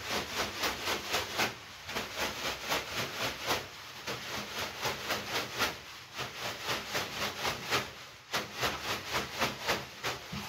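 Two wet leafy bath brooms (veniks) swishing and patting over a person's back in a quick, even rhythm of about three to four strokes a second, with a few short breaks.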